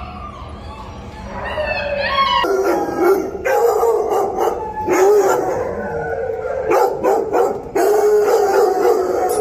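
Several kennelled dogs barking and yipping, with long wavering cries between the barks.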